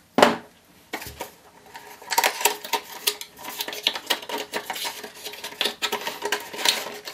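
Cardboard retail box of an M.2 SSD being opened by hand: one sharp tap just after the start, then, from about two seconds in, a dense run of scraping, rustling and clicking of card and packaging as the lid and flap are pulled apart.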